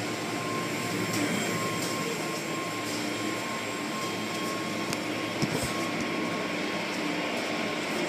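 Automatic car wash heard from inside the car: rotating cloth brushes and water spray working against the body and windows, a steady wash of noise with a thin, steady machine hum under it.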